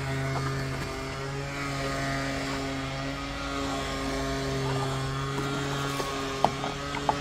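Steady engine drone holding one pitch throughout, with a few light taps near the end.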